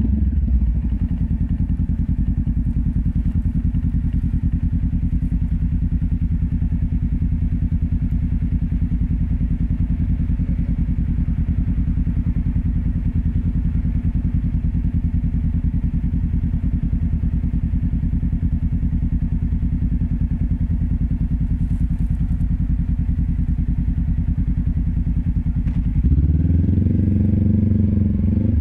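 Honda CB500X's parallel-twin engine through a LeoVince LV10 slip-on exhaust, heard close to the silencer. The revs drop to idle in the first second and it idles steadily with a bassy note, then revs rise and get louder as the bike pulls away near the end.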